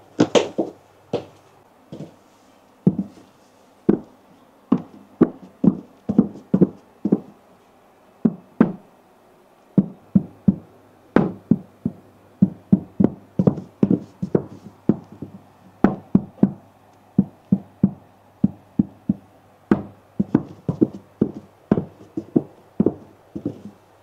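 Patent-leather block-heeled shoes tapping and stepping on a round pedestal top, making a string of sharp heel clicks and knocks. The steps come sparse and spaced at first, then quicker and denser from about ten seconds in.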